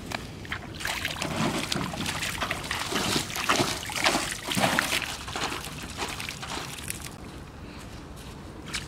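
River water being splashed by hand at the bank: a quick, irregular run of splashes and slaps that eases off after about five seconds into fainter sloshing.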